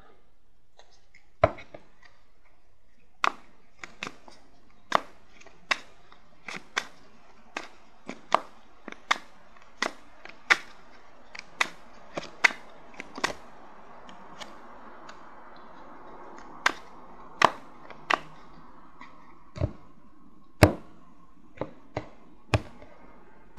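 A deck of tarot cards being handled: a string of sharp card snaps and taps against the table, some coming in quick even succession, with a soft shuffling rustle for several seconds past the middle.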